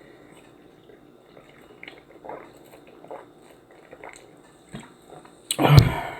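Close-up eating sounds: soft chewing with small scattered clicks, then a single louder knock with a dull thud near the end.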